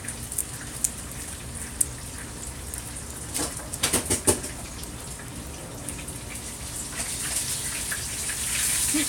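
Hot oil sizzling and crackling in a frying pan, with a few sharp clicks about halfway through and the sizzle growing louder near the end.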